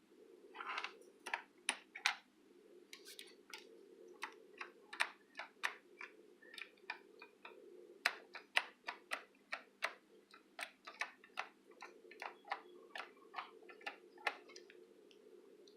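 Clicky white Alps key switches on a kidBoard KB-PC09 keyboard pressed one at a time at an uneven pace, about two or three clicks a second, with a steady low hum behind.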